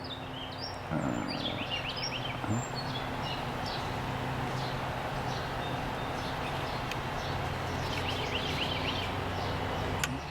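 Small birds chirping repeatedly in the background over a steady low hum, with a single sharp click near the end.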